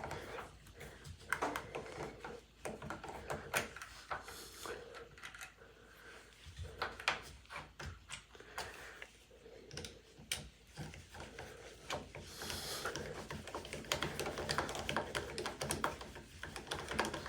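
Irregular light clicks and taps of metal doorknob and latch hardware being handled and fitted into a door.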